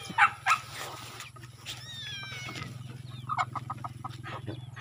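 Free-ranging chickens clucking and calling, with two sharp short calls near the start, a few falling chirps about two seconds in and a quick run of clucks about three and a half seconds in, over a steady low hum.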